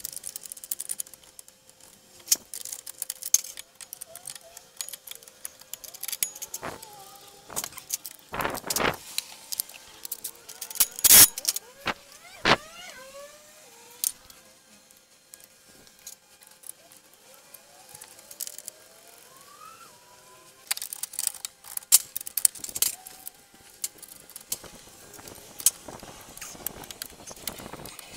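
Metal tools and suspension parts clinking and knocking irregularly as a front lower control arm is fitted to the car, with the loudest sharp clanks about eleven and twelve seconds in and faint squeaks in between.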